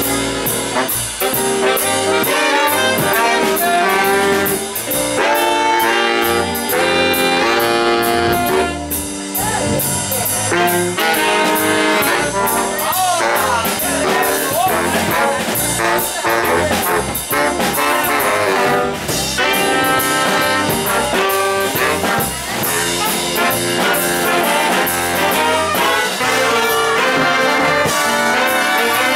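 A live jazz horn section led by saxophones, playing a tune with several horns sounding in harmony.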